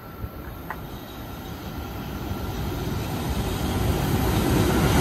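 Freight train approaching through a station: the rumble of the locomotive and wheels on the rails grows steadily louder as it nears the platform. A faint steady high tone fades out in the first second or so.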